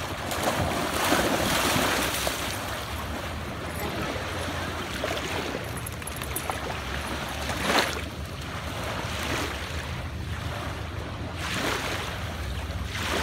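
Lake water lapping and washing at a sandy shore, with wind rumbling on the microphone. A brief louder burst of noise comes about eight seconds in.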